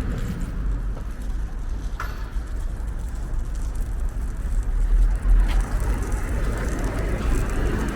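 Steady low rumble of a car on the move, with two brief clicks.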